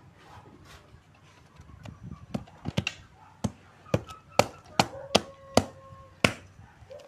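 Large knife chopping firewood sticks: a run of about ten sharp strikes of the blade on wood, starting about two seconds in and ending near the end.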